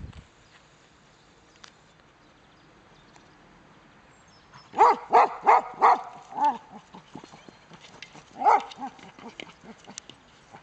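Border collie barking: a quick run of about five barks a little under halfway through, then one more bark a couple of seconds later.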